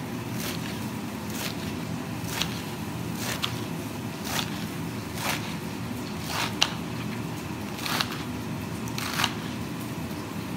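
A kitchen knife chopping through romaine lettuce on a cutting board: a crisp crunch and a knock of the blade on the board, about once a second.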